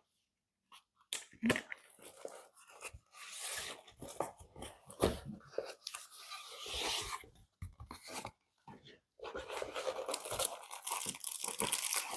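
Kit packaging being torn open and handled: irregular crinkling and tearing in two long stretches, with a short pause between them.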